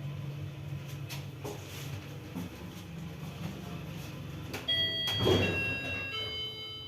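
ShchLZ elevator car running with a steady low hum and a few light clicks. Near the end an electronic chime plays a series of clear tones stepping in pitch, and a loud clunk comes about five seconds in.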